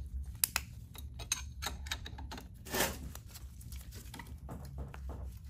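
Light metallic clicks and ticks of a combination wrench working the gearbox drain bolt, which is being installed with a new crush washer. A brief rasp comes about three seconds in.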